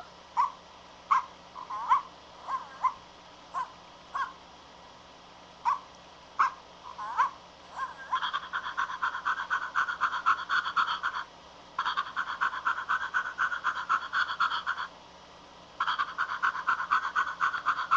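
Dog making short, high-pitched yips and whines that bend in pitch. From about eight seconds in, three runs of rapid, even yapping follow, each about three seconds long with short breaks between them.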